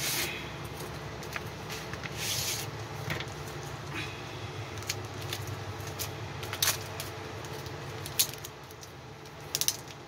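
Packaging being handled and opened by hand: scattered rustling and sharp clicks and taps, with a brief louder rustle about two seconds in and a few sharp clicks in the second half, over a steady low hum.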